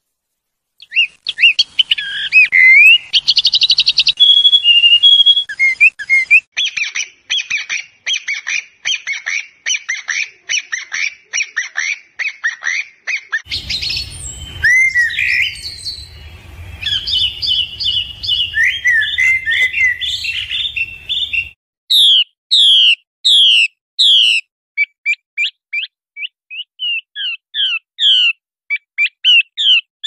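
Songs of several different birds cut one after another: varied whistled phrases, then a long run of fast repeated notes, then chirping over a low hum. Near the end come loud whistled notes sweeping downward and quick repeated chirps from a Chinese hwamei.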